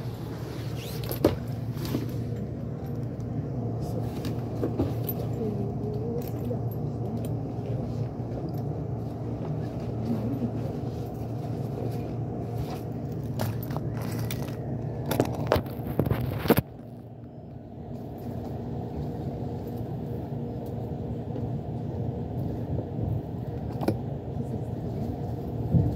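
Inside an E353-series limited express electric train: a steady low hum with scattered clicks and knocks as the train pulls out along the platform. About two-thirds of the way through, the hum drops suddenly to a quieter level and then slowly builds back.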